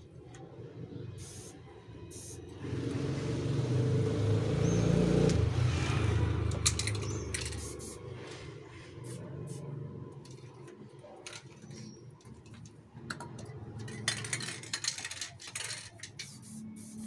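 A passing vehicle rumbles up and fades over about five seconds, loudest a few seconds in. Around it come short aerosol spray-can hisses and light metallic clicks.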